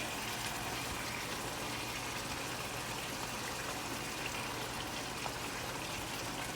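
Chicken cooking in a tomato and yogurt sauce, sizzling steadily in a pot on the stove.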